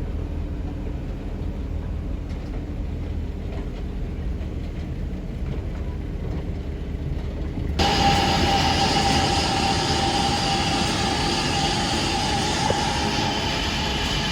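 Sawmill machinery running with a low steady hum; about eight seconds in it turns abruptly louder, with a steady high whine over the noise, as a saw runs through the hardwood log.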